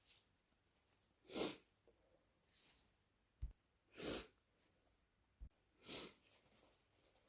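A woman with the flu sneezing three times, short harsh wet bursts a couple of seconds apart, each a little fainter than the one before; the harshness comes from a throat raw from coughing. Two brief low thumps fall between the later sneezes.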